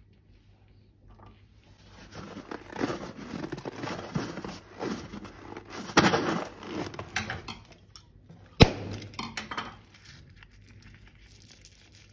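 Slime and its materials being handled and squeezed by hand: irregular crinkling, squishing and tearing sounds. There is a sharp snap about halfway through and a louder one a few seconds later.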